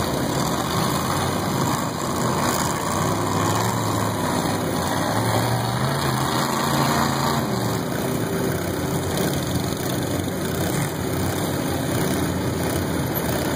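Riding lawn mower engines running and revving, several at once, with one engine note rising and falling around the middle.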